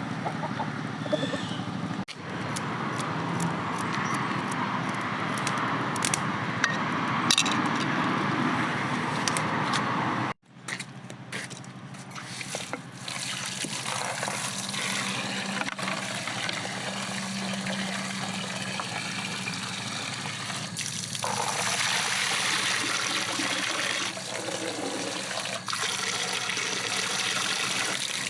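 Water trickling and splashing, broken by abrupt cuts about two, ten and twenty-one seconds in.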